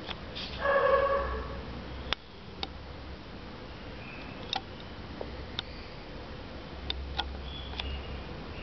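A dog gives one high-pitched whine, about a second long, shortly after the start, followed by scattered light clicks and ticks.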